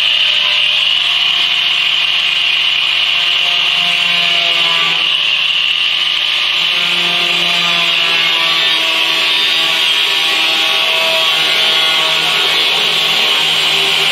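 Angle grinder cutting through sheet-metal ductwork: a steady high-pitched whine with a lower tone that wavers as the wheel works in the metal.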